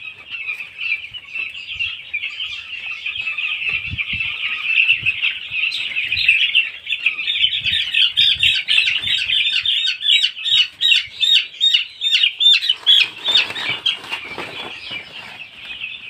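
Many nine-day-old broiler chicks peeping together in a dense, high chorus of rapid chirps, loudest in the middle. A few soft low thumps are heard from handling.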